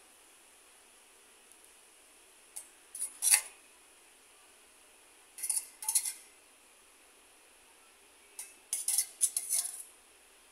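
A steel spoon clinking against a small steel bowl and glass dessert bowls in three short bursts of clinks a few seconds apart, as food colour is scooped and spooned onto the kheer.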